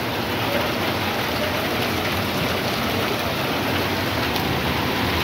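Heavy rain pouring steadily onto a wet street, a constant even hiss of rainfall.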